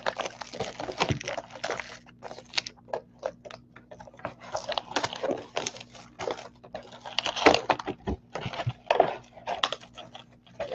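Plastic shrink wrap being torn and peeled off a sealed trading-card box, with irregular crinkling, rustling and crackling, then the cardboard box lid being opened near the end.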